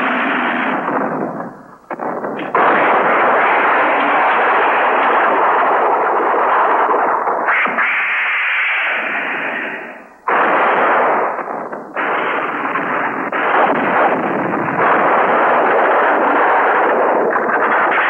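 Monster-movie battle sound effects: a dense, continuous wash of blast and explosion noise, dull and muffled as from an old TV recording. It fades away twice and cuts back in suddenly.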